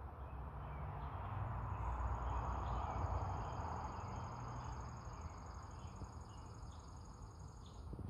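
Insects trilling steadily at a high pitch in an evening chorus, with scattered short bird chirps. A soft rushing background noise swells about two seconds in and fades again.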